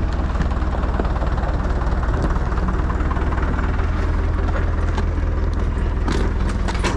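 Tractor engine running steadily with a deep hum, with a few sharp knocks near the end.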